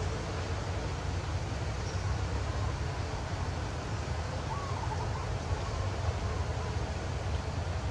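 Steady outdoor background noise with a low rumble, typical of wind on the microphone. A faint short warbling call sounds a little past halfway.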